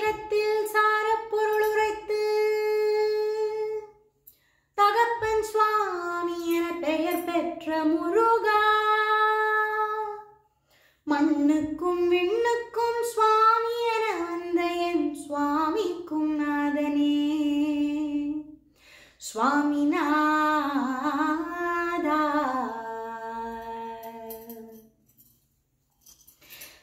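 A woman singing a Tamil devotional song to Murugan solo and unaccompanied, with long held notes and sliding, ornamented turns between them. She sings four long phrases with short breaths between, and stops about two seconds before the end.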